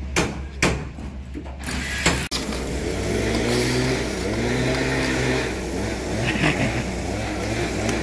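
A couple of sharp metallic clanks, then steady loud machine noise: a rushing hiss over a low hum, with a motor note that rises and falls.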